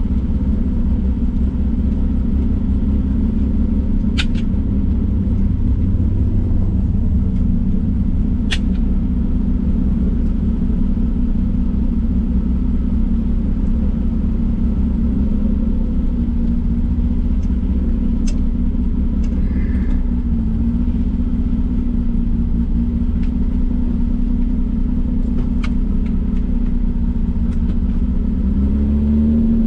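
Datsun 240K racing car's straight-six engine running at a fairly steady pitch, with a few sharp clicks along the way. It picks up revs right at the end.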